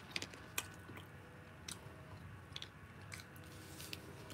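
A person chewing food with the mouth closed, faint, with a scattering of short sharp mouth clicks.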